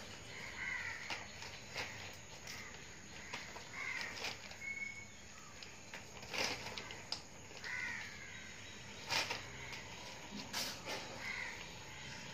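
Large plastic sack crinkling and rustling in sharp bursts as cats climb and paw inside it, loudest about nine seconds in. Four short calls sound at intervals of a few seconds.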